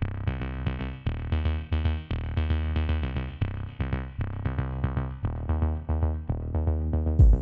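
Electronic background music: a steady beat with repeated pitched notes over a heavy bass, and a loud low hit just before the end.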